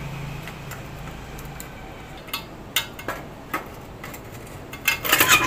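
Hands handling metal parts: a few separate sharp clicks, then a short burst of metallic clatter near the end, over a steady low hum.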